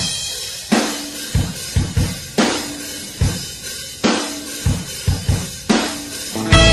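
A recorded song's intro on a drum kit alone: kick drum and snare hits with cymbals in a steady beat. The rest of the band comes in near the end.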